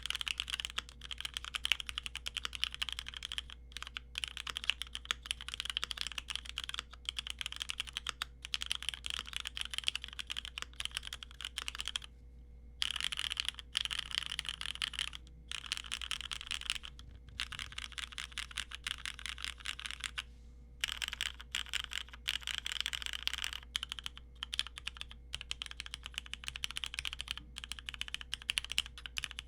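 Continuous fast typing on a Keychron Q1 aluminium mechanical keyboard with Cherry MX Black linear switches, a dense stream of keystroke clacks broken by two brief pauses, about twelve and twenty seconds in.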